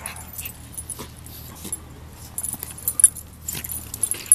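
Metal collar tags jingling and paws scuffling in wood chips as a Schipperke and a black Labrador puppy wrestle, with a few short sharp clicks.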